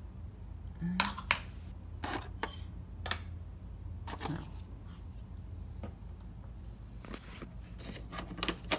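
Plastic toy figures handled and set down on a plastic playset: scattered light clicks and taps, with two sharper knocks about a second in and a brief scrape near the end.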